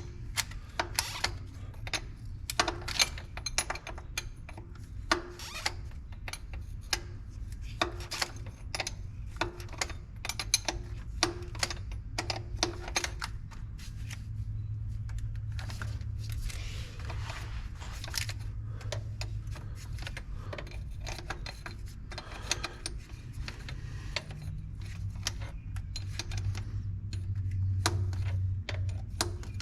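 Irregular metallic clicks and clinks over a steady low hum. The clicks come thickly for about the first half and thin out after that.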